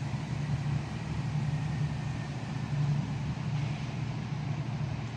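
Steady low mechanical rumble, like engines or generators running, with no clear change.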